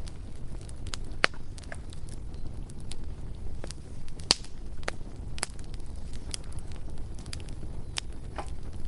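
Bonfire crackling: irregular sharp pops and snaps over a low steady rumble, the sharpest pop a little before halfway.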